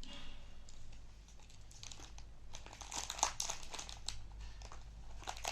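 Monaco biscuit packet being opened and crinkled by hand: irregular crackling, densest about three seconds in.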